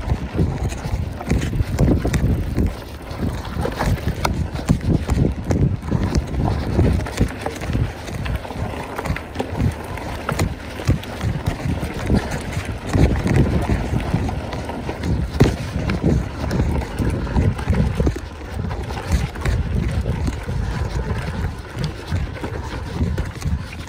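Mountain bike being ridden over rough ground, rattling with many small, irregular knocks and clatters, over a constant low rumble of wind on the microphone.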